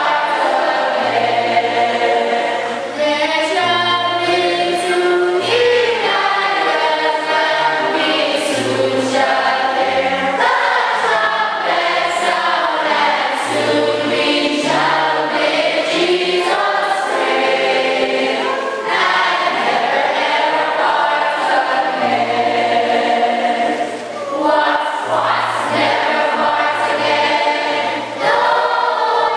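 Choir singing a gospel song in harmony, long held notes over a low bass line that steps from note to note.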